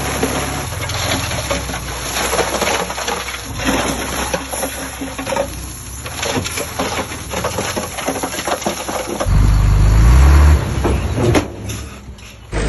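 Heavy diesel construction machinery running, with irregular clattering throughout and a loud, rising rev of the engine about nine seconds in that lasts about a second.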